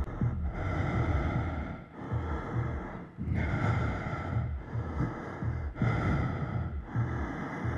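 A person breathing heavily and close up, a run of quick breaths in and out with short pauses between them.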